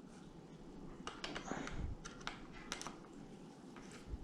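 Light, irregular clicks and taps of small plastic and metal parts being handled at the handlebar as the loose bike computer mount is worked back into place; about a dozen quick clicks, mostly after the first second.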